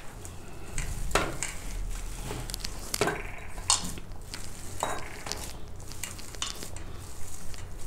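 Hand squishing and kneading a soft mash of boiled potatoes and green pigeon peas in a stainless steel bowl, working salt through it. Scattered light clicks and knocks come from hand and bangles against the bowl.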